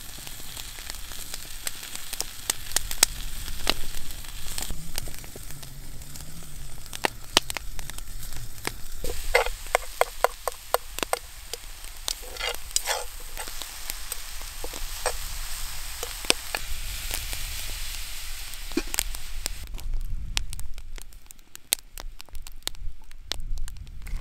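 Ground moose meat sizzling as it fries in a metal skillet over a campfire, with a utensil clicking and scraping against the pan as the meat is stirred. The sizzling drops away near the end.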